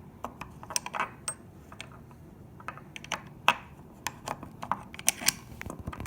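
Irregular sharp metallic clicks and taps as a pair of interchangeable crimping dies is fitted and locked into a hand ratcheting crimper. The loudest click comes near the end.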